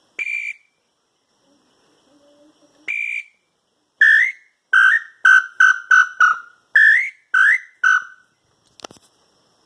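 Handmade wooden bird-call whistle (piu) of espinheira-branca wood being blown: two short single notes a few seconds apart, then a run of about nine quick short notes, some sliding upward. Its maker finds this call came out a bit weak.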